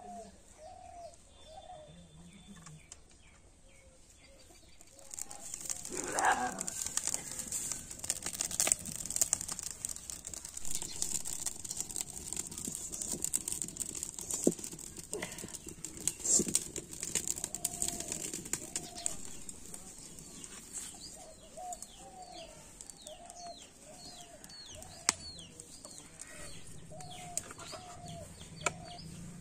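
A straw-and-wood fire burning with many small crackles under a wok on a clay stove, starting about five seconds in, with a few sharp knocks. Birds call repeatedly throughout in short low calls, with a run of high chirps near the end.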